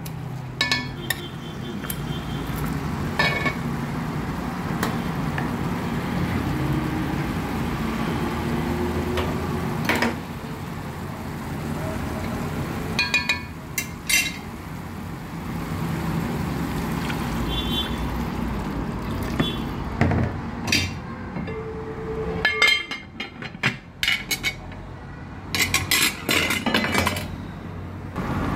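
Metal ladle stirring chicken in an aluminium pot, scraping and clinking against the pot sides over a steady low background noise. Near the end comes a quick run of metallic clinks and clatters as the metal pot lid is handled.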